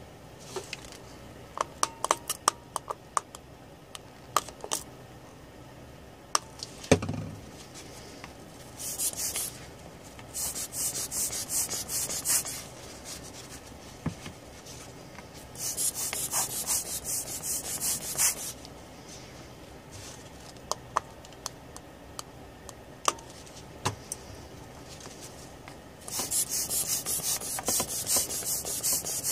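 A cloth scrubbing over a laptop motherboard to wipe away leftover soldering flux around the graphics chip: several spells of quick, hissy rubbing strokes, the last one near the end. Scattered light clicks and taps come between them.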